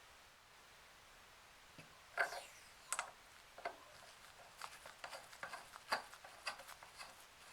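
Light, irregular clicks and taps from small parts being handled, about a dozen of them, starting about two seconds in with a brief scrape.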